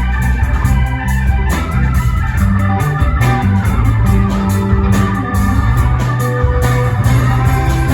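Live band playing during a sound check, with organ to the fore, sustained notes over a steady low bass line and regular percussive hits.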